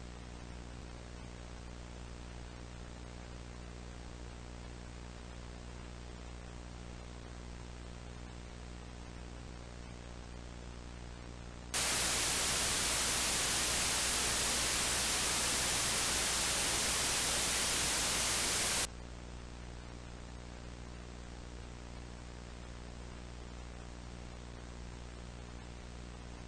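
Steady electrical hum with evenly spaced overtones over a faint hiss. About twelve seconds in, loud white-noise static cuts in suddenly, lasts about seven seconds and stops just as suddenly, leaving the hum.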